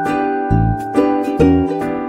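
Light instrumental background music with a steady beat: quick plucked notes over a bouncing bass line.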